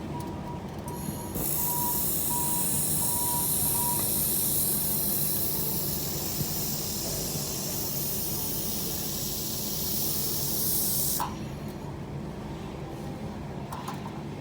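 Laser welding machine welding metal: a steady high hiss that starts about a second in, runs for about ten seconds and cuts off sharply. A faint series of beeps sounds during the first few seconds.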